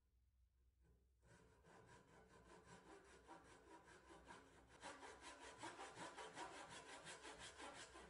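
Hand saw cutting into the edge of a wooden disc with quick, short back-and-forth strokes to cut a notch. It starts about a second in, gets louder about halfway through, and stops sharply at the end.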